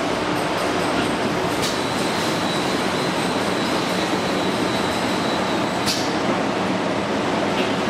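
Automatic shrink-wrapping machine running with a steady mechanical noise and a faint high whine. A few short sharp sounds come through, about two seconds in, about six seconds in and near the end.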